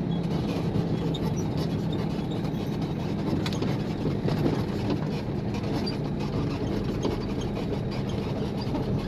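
Isuzu FVZ280 truck's diesel engine running steadily while the truck is driven, a constant low drone with road noise.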